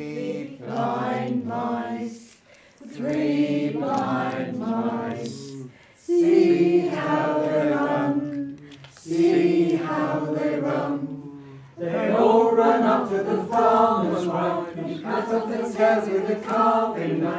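A group of voices singing unaccompanied, in held phrases of a couple of seconds with short breaths between them, running on without breaks and fuller toward the end.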